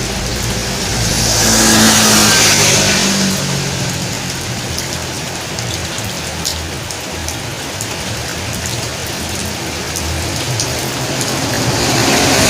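A motor vehicle drives past on a wet road. Its engine hum comes with a loud hiss of tyres on water about two seconds in. Steady rain fills the gap, and another vehicle's tyre hiss builds near the end.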